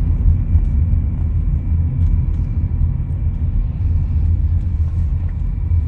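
Steady low rumble of a car heard from inside the cabin, the engine and road noise of the vehicle she is sitting in.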